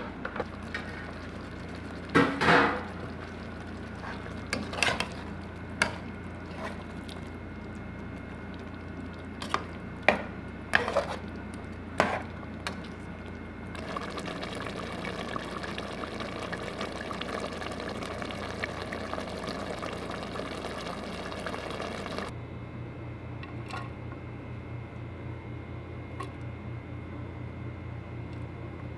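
A spoon clacking and scraping against a cooking pot as chicken pieces are stirred into thick tikka masala sauce, with about seven sharp knocks over the first twelve seconds. The sauce then bubbles steadily as it simmers on low heat for about eight seconds, cutting off suddenly to quiet room noise with a low hum.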